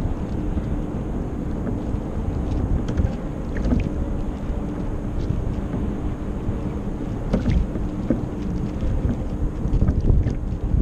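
Water rushing and splashing along the hull of a Kyosho Seawind RC sailboat under sail, heard from on board, mixed with wind buffeting the microphone. A faint steady hum runs underneath, with a few sharp ticks scattered through.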